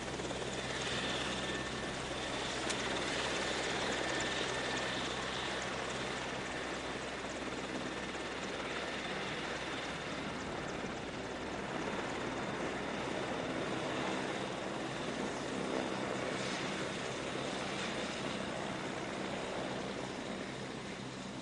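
AgustaWestland MCH-101 (AW101) helicopters' turbine engines and rotors running, a steady noisy rumble. A faint high whine shows in the first few seconds.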